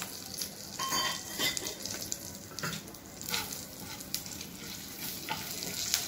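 Tempering spices and curry leaves sizzling in hot oil in a nonstick kadhai, with scattered pops and crackles, stirred with a wooden spatula.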